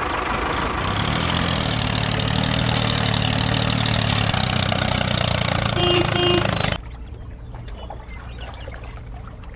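An engine running steadily with a low hum. About seven seconds in it drops suddenly to a much quieter engine hum.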